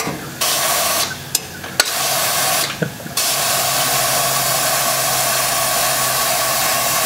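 A hydraulic car lift's valve hissing, first in a few short bursts and then steadily from about three seconds in.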